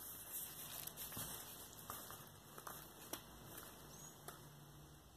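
Faint handling noise from a vinyl LP's cardboard sleeve being gripped and turned over: a brief rustle followed by scattered light taps and clicks.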